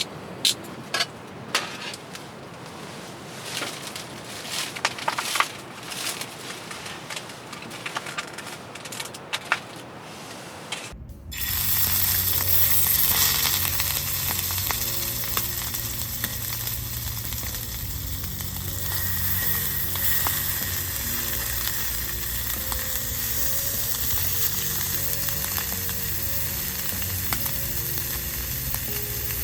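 Scattered light clicks and taps, then about eleven seconds in a sudden switch to loud, steady sizzling of meat frying on a grill.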